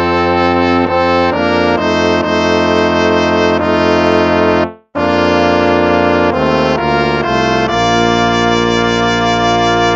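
Instrumental hymn played in slow, held brass-like chords that change every second or so, with a brief full break between phrases a little before halfway.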